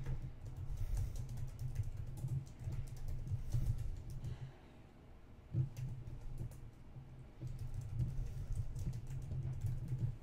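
Typing on a computer keyboard: a quick run of keystrokes, a brief pause a little before the middle, then more typing.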